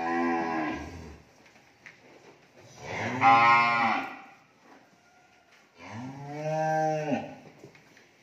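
Young cattle mooing: three long calls of about a second and a half each, the first already under way at the start and the middle one the loudest.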